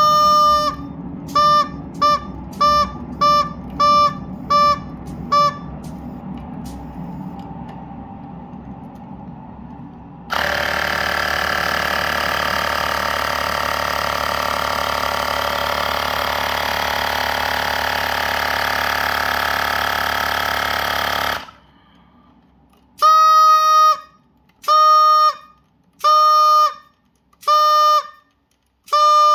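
Rubber chicken's internal whistle blown by compressed air from a LEGO water-bottle air tank, sounding one steady pitched toot at a time: about eight short quick toots, then a series of longer toots about a second and a half apart near the end. In between, a loud steady rushing noise runs for about eleven seconds.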